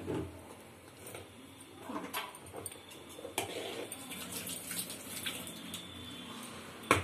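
Quiet kitchen handling sounds: a spoon scraping cooked ragi dough out of an aluminium pot and wet hands working the soft dough on the counter, with a sharp knock near the end.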